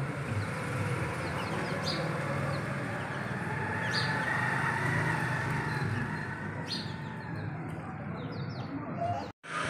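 Birds calling, with short high chirps every two to three seconds over a steady background.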